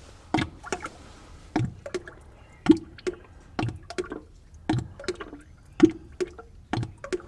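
Oil draining from a 1975 Ford 550 backhoe into a drain pan, splashing in a string of irregular plops and glugs about one or two a second.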